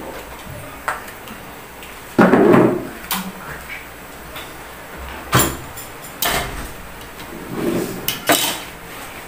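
Plates and dishes clinking and knocking on a table as food is served, about seven separate sharp clinks plus two fuller thuds, one just past two seconds in and one near eight seconds.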